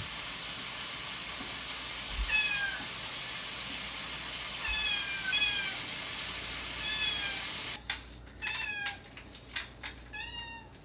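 Kitten meowing over and over in short, high mews that fall away in pitch. A steady background hiss cuts off suddenly about eight seconds in, and the mews come quicker after it.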